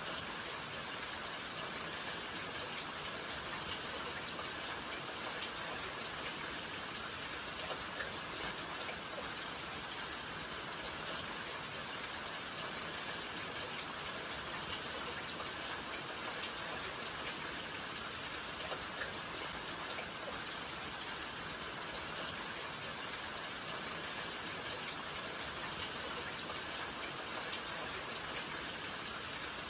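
Steady rain falling, a dense even hiss of many small drops striking a surface.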